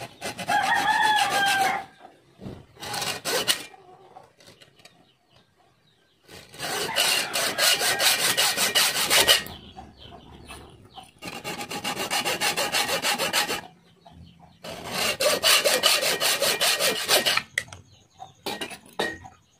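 Hand hacksaw cutting a stainless steel tube, rasping in several runs of quick back-and-forth strokes with short pauses between, as slots are cut into the tube's end. A rooster crows once near the start.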